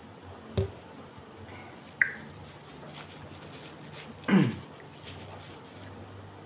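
Handling sounds while eating bread with a soft drink: a knock about half a second in as the plastic soft-drink bottle is set down, a sharp click about two seconds in, and, loudest, a short sound sweeping steeply down in pitch a little past four seconds, over faint room noise.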